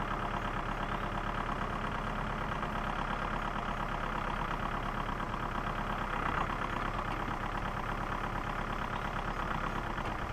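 Small tractor engine running steadily at a low idle, with a fast, even firing beat.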